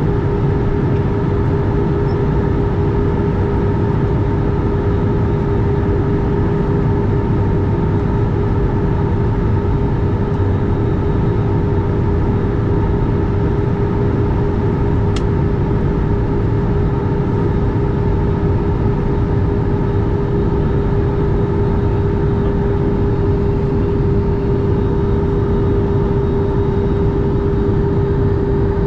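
Steady airliner cabin noise from a window seat over the wing of an Airbus A320-family jet in flight. The jet engines' drone and the rushing airflow carry a steady hum with a fainter higher tone above it. A single faint click comes about halfway through.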